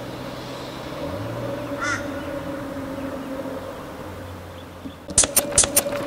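Steady hum of a Queensland Rail electric suburban train moving slowly through the yard. A crow caws once about two seconds in. Near the end come four quick, sharp clicks.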